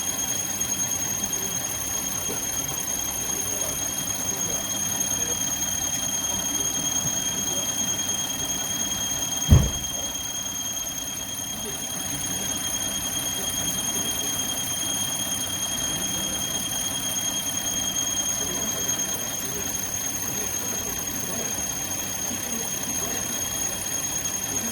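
Hyundai Grandeur TG engine running with a steady high-pitched whine over it, and a single thump about ten seconds in. The engine seems to stumble a little, which the mechanic says could be the alternator not turning.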